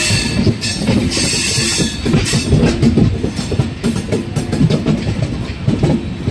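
Passenger train running along the track, heard from on board: a steady rumble of wheels on rails with irregular knocks and clacks and a hiss above.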